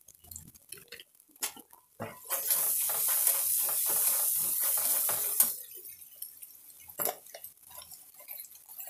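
A perforated steel spoon stirs and scrapes a masala paste frying in oil in a steel kadhai. About two seconds in, a loud sizzling hiss rises as the paste is turned over and lasts some three seconds. Scattered taps and scrapes of the spoon on the pan follow, then a single sharp clack about seven seconds in.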